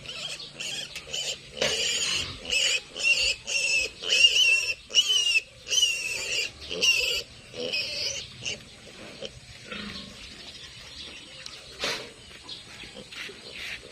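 Piglet squealing in a rapid run of loud, high-pitched screams, about a dozen in quick succession, then dying down to quieter cries. A single sharp click near the end.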